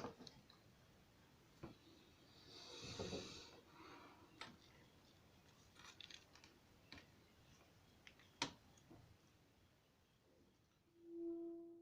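Near silence: room tone with a few faint clicks, a soft rustle, and a brief low steady tone near the end.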